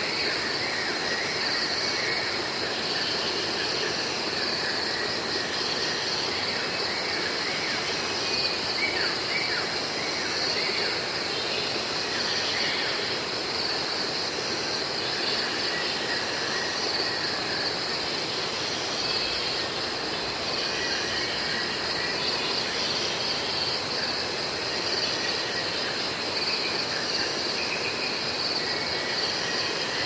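Tropical montane rainforest ambience: a steady high-pitched cicada drone with several different birds calling over it, the bird calls busiest in the first half.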